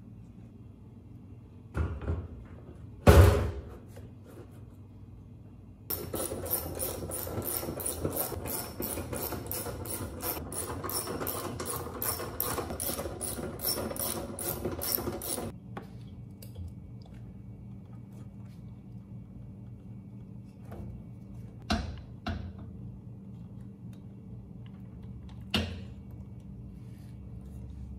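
A generator fuel tank is set down onto its steel frame with two knocks, the second a loud clunk. Then comes about nine seconds of rapid, even mechanical clicking from a tool tightening the tank's hold-down bolts. Two more single knocks follow later.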